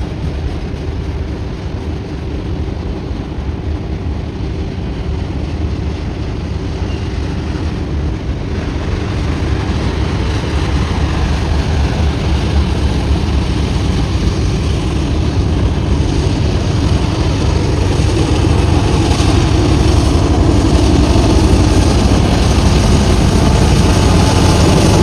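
Union Pacific diesel locomotive working hard upgrade, its engine drone growing steadily louder over the continuous rumble of a heavy freight train rolling past.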